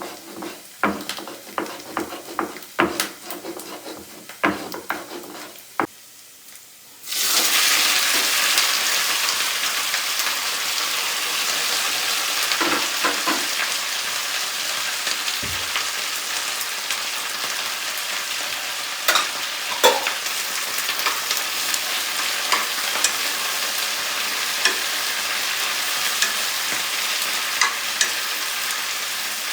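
Food frying in a hot pan: a loud, steady sizzle starts suddenly about seven seconds in, with occasional clinks of a utensil stirring. Before it, scattered clicks and knocks of kitchenware.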